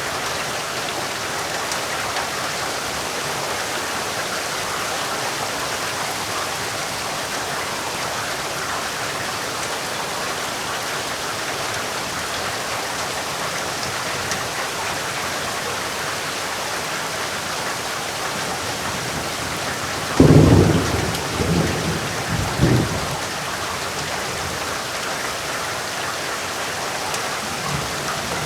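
Heavy rain falling steadily in a dense, even hiss. About twenty seconds in, a low rumble of thunder breaks out suddenly and rolls for about three seconds before the rain alone carries on.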